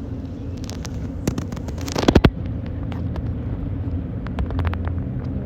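Steady low rumble and hum, as aboard a cruise ship at sea, with a run of sharp clicks and knocks about two seconds in (the loudest moment) and a few more clicks near the end.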